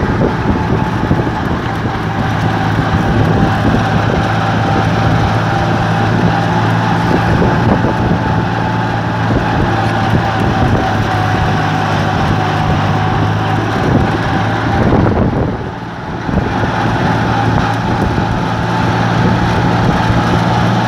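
Hand tractor's engine running steadily under load as the rig travels, heard close up from aboard, with a brief dip in level about fifteen seconds in.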